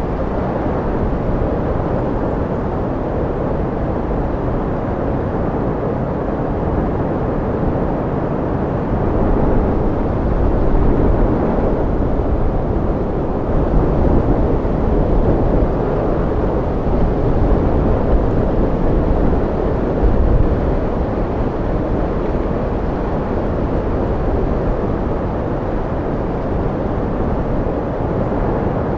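Deep, steady wind with no high whistle, swelling gently in slow gusts now and then.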